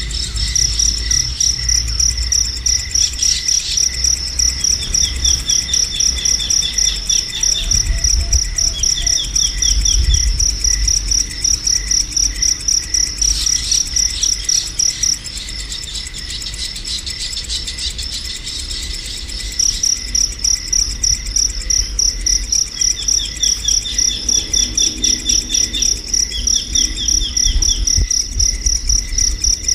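A cricket chirring steadily in fast, even pulses, high-pitched, falling silent for a few seconds about halfway and then resuming. Short trills of bird chirps come in a few times over it.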